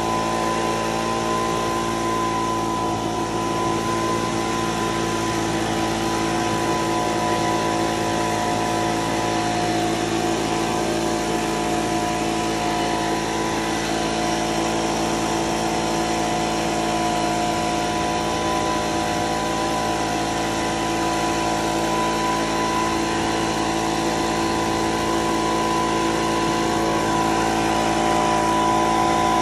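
Electric tomato-pollination cart running, its motor and air blower giving a steady whine over a rush of air, growing a little louder near the end.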